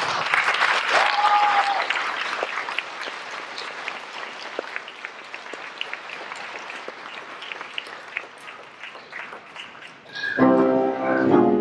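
Audience applauding, loudest at first and slowly tapering off. About ten seconds in, instrumental accompaniment music starts.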